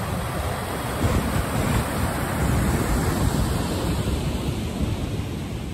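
Ocean surf: a wave breaking and white water rushing, swelling about a second in and easing toward the end, with wind on the microphone.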